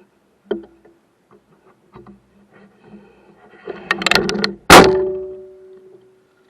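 Knocks and a clattering run on a boat, ending in one loud clang that rings on as a single tone and fades over about a second and a half, like gear striking a metal hull.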